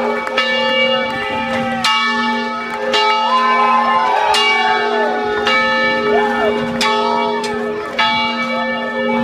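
A large bell rung over and over in celebration of a win, a strike about every second and a quarter, each one ringing on under the next, with people shouting over it.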